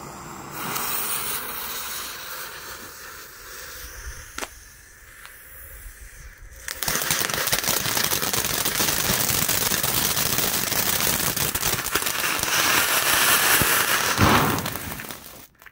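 Small Weco Lemon Pink youth firework fountain: a quieter fizzing first, then about seven seconds in the fountain erupts into a loud, steady hissing spray of sparks with dense crackling. The spray stops abruptly just before the end.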